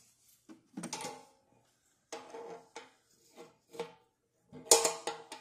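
Metal clinks and knocks of an adjustable wrench and a fuel-filter fitting against a painted metal fuel tank, about six separate strikes that each ring briefly. The loudest comes near the end.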